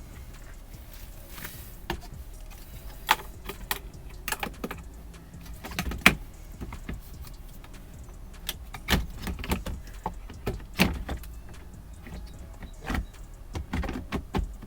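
Irregular clicks and knocks of parts and tools being handled while a panel is refitted, over a steady low hum.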